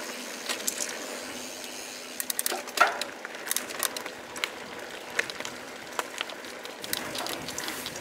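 Santa Cruz 5010 mountain bike rolling along a dirt woodland trail: steady tyre noise with scattered clicks and rattles from the bike and the trail, and a quick run of sharp cracks about two and a half seconds in.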